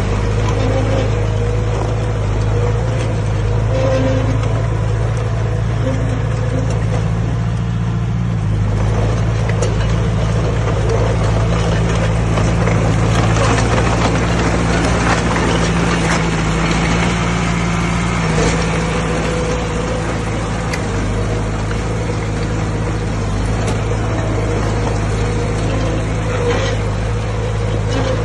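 Diesel engine of earthmoving machinery running steadily under load, its pitch shifting about a third of the way in and again past the middle, with a rougher noise building up in between.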